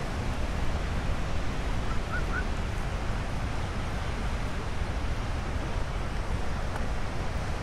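Wind buffeting the microphone over a steady wash of surf, with a brief high wavering call about two seconds in.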